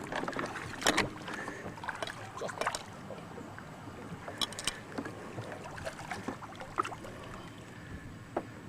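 Scattered light knocks and clicks of handling in a small fishing boat, over a low steady background noise.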